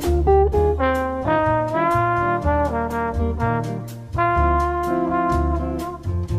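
Background jazz music: brass playing a melody over a bass line and a steady beat.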